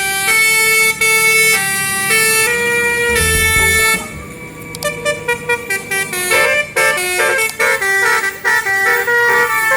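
Multi-tone Basuri telolet bus horn playing a stepped melody: longer held notes for about four seconds, then a run of quick short notes from about six seconds in. A low rumble sits under it about three seconds in.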